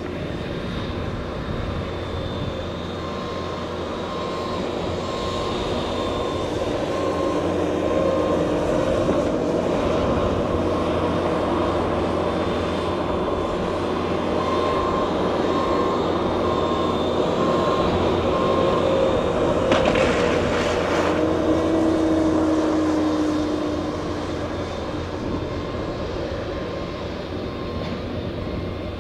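Radio-controlled aerobatic airplane flying overhead, its motor and propeller droning with the pitch shifting as it manoeuvres. It grows louder through the middle, is loudest about twenty seconds in, then fades.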